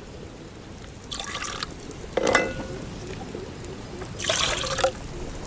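Rinse water from the grinding stone poured into a cooking pot in three short splashing pours, the middle one with a brief ring of the vessel.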